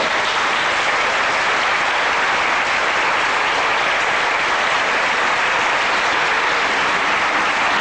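Audience applauding: dense, steady clapping that keeps an even level throughout.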